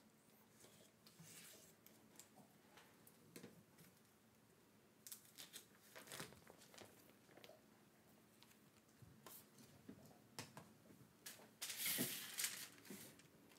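Faint clicks and rustling of a plastic bacon package being snipped open with kitchen scissors and pulled apart, then a louder crinkle of a parchment paper sheet being handled and laid on a cookie sheet near the end.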